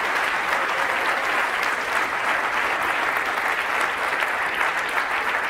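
A large audience applauding: a dense, steady round of clapping.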